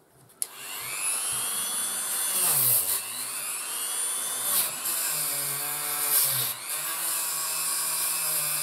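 Dremel rotary tool with a wire brush spinning up about half a second in and running at high speed, its whine dipping and recovering a couple of times as the brush is pressed against plastic to rough up the surface for glue.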